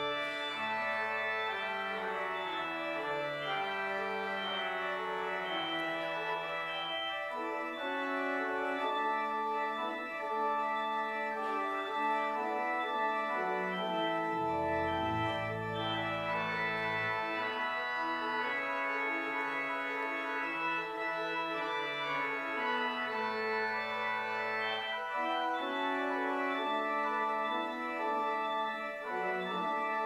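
Two-manual church organ playing held chords, the notes changing every second or two.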